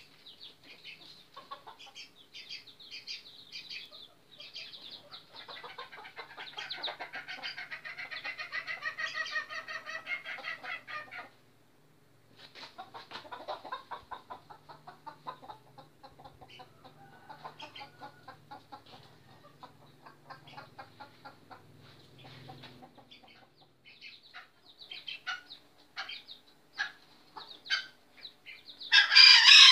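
Caged chickens and roosters clucking and calling again and again, busiest for a few seconds early on, with one loud call near the end.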